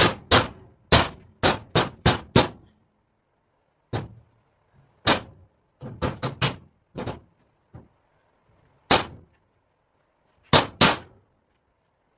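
Sharp knocks on metal, like hammer blows on sheet steel, each with a short ring. A quick run of about seven comes at the start, then scattered single hits and small groups with pauses between.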